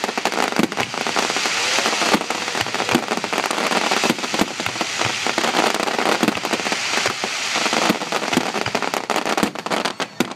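Ground-level fireworks going off: a dense, irregular run of crackling pops and bangs over a steady hiss from the burning fountains and crackling stars.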